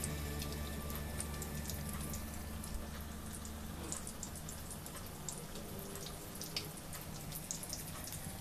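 Thai omelette (khai jiao) with canned fish frying in hot oil in a wok: a steady sizzle with scattered small crackles and pops.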